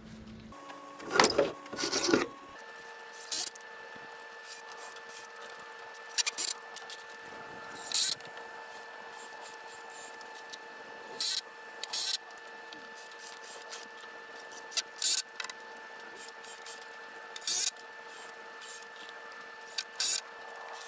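Short, scattered scraping and knocking sounds of hand work on a frame of wooden boards, one every second or two, over a faint steady hum.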